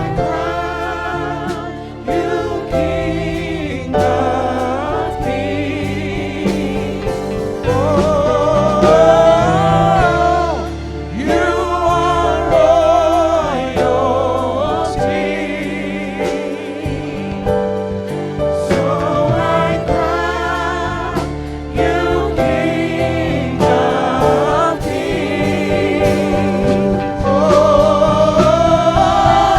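Gospel worship music: voices singing with a strong vibrato over a band with a steady drum beat.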